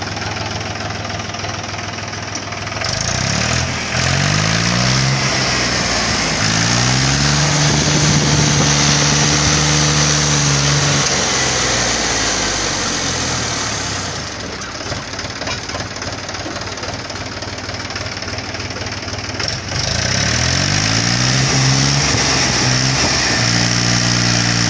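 Mahindra B275 DI tractor's three-cylinder diesel engine idling, revved up about three seconds in and held high for several seconds before easing back to idle, then revved up and held high again near the end.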